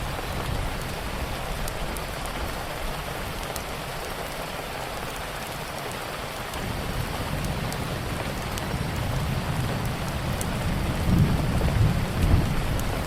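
Steady heavy rain with sparse sharp crackles from a wood fire. Under it runs a low rumble that swells about eleven seconds in.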